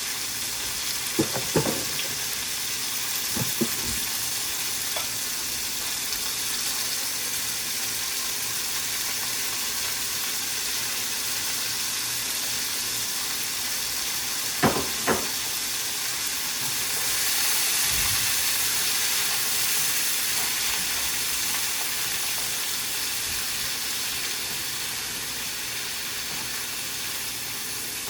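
Vegetables sizzling in hot oil in a pan for a stir-fry, a steady hiss that swells a little after the middle. A few sharp clacks of a utensil against the pan come near the start and about halfway through.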